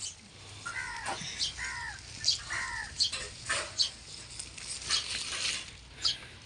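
Crisp snapping and rustling as tender young buckwheat stems are broken off by hand, a string of sharp clicks. In the first three seconds an animal gives three short pitched calls, each falling away at the end.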